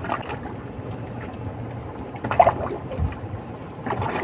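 Steady low wind and water noise in a small fibreglass boat at sea, broken by a few brief short sounds, including a low knock about three seconds in.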